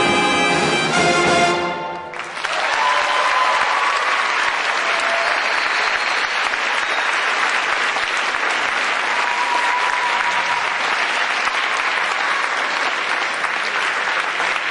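Big band of saxophones, trumpets and trombones holding a final chord that cuts off about two seconds in. Audience applause follows and carries on steadily.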